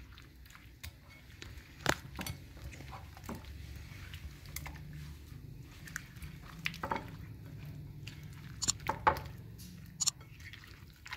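Spatula mixing raw prawns in a wet marinade in a ceramic bowl: soft wet squelching with scattered clicks and knocks against the bowl, over a low steady hum.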